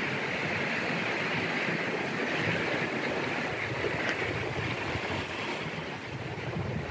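Sea surf washing steadily, a constant hiss, with wind gusting over the microphone.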